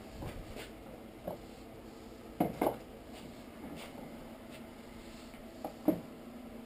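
Metal hand tools clinking and clattering as they are handled on a workbench: a few sharp clinks, the loudest pair about two and a half seconds in and another near six seconds, over a steady low hum.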